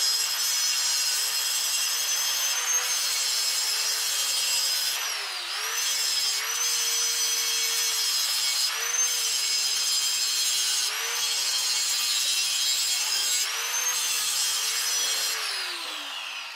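Electric angle grinder grinding down weld on a steel go-kart spindle: a loud scraping hiss over the motor's steady whine, which dips and recovers several times as the disc is pressed into the metal. Near the end it is switched off and the motor winds down with a falling pitch.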